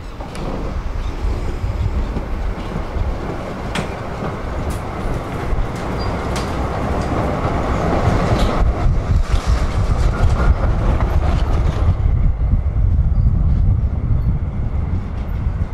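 Tram running along the track, heard from on board: a steady low rumble of wheels on rail with scattered clicks, getting louder as it goes. About twelve seconds in, the higher hiss drops away and the rumble carries on.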